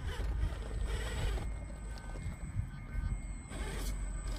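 A Vanquish Phoenix RC rock crawler on Traxxas TRX-4 axles crawls up a rock crevice. Its electric motor and gears whine at a steady pitch, and its tires scrabble and scrape on the stone a few times, over a steady low rumble.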